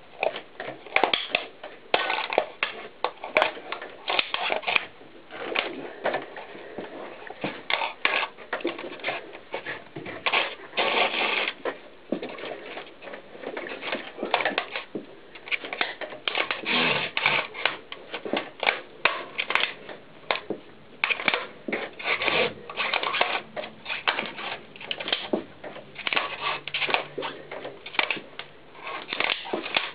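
Knobby mountain bike tyre rolling and pressing down on a plastic VHS videotape cassette: a fast, irregular run of cracks, crunches and scrapes, coming in uneven clusters.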